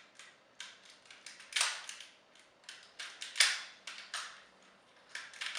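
Plastic joints and parts of a Transformers Sixshot action figure clicking and snapping as it is worked through a transformation: a string of irregular sharp clicks, with two louder snaps about one and a half and three and a half seconds in.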